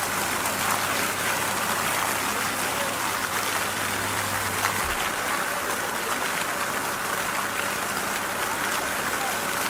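Steady hiss like heavy rain, with a low hum underneath that cuts out about five seconds in.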